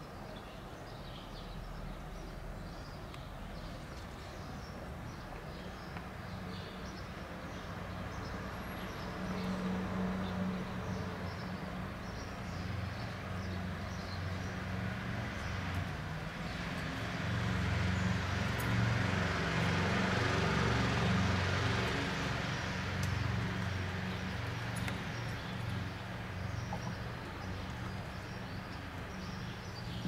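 Distant jet roar of an Airbus A330-243 with Rolls-Royce Trent 700 engines cruising high overhead. It slowly swells to its loudest about two-thirds of the way through, then begins to fade. Small birds chirp now and then, mostly in the first third.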